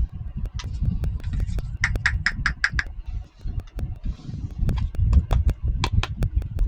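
Small plastic toy kitchen pieces being handled and set down: repeated light clicks and taps over dull handling bumps, with a quick run of about six clicks around two seconds in.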